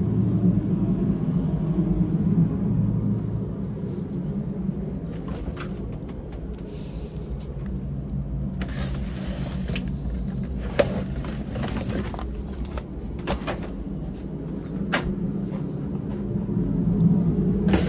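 Steady low machine hum in a cooking kitchen, with a few sharp clicks and knocks of cookware scattered through it.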